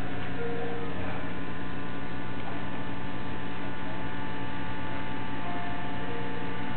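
Steady electrical hum, several low tones at once, over a constant background hiss, with a few short faint tones near the start and again near the end.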